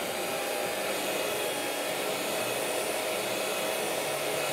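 Electric hand mixer running steadily with a constant motor whine, its twin beaters whipping heavy cream and condensed milk.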